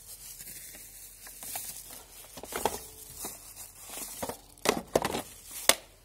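Handling noise: scattered sharp clicks and knocks with some rustling, the loudest three coming in quick succession near the end.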